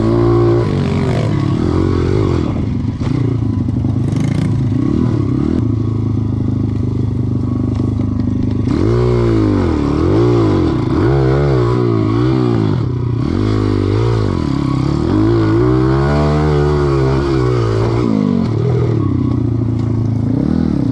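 Pit bike's single-cylinder four-stroke engine heard from on the bike while riding a dirt trail, revving steadily at first; from about the middle the revs rise and fall over and over, about once a second, as the throttle is worked.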